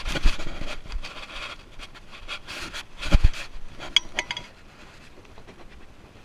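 Close handling noise: rustling and scraping as a landing net and fishing gear are moved about on jetty rocks, with several knocks, a heavy thump about three seconds in, and a few sharp clicks near four seconds.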